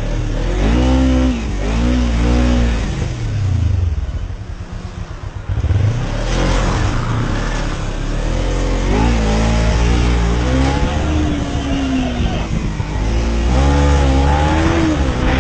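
Motorcycle engine revving up and falling back again and again as the bike accelerates and slows through traffic, easing off to a quieter stretch about four seconds in before pulling hard again.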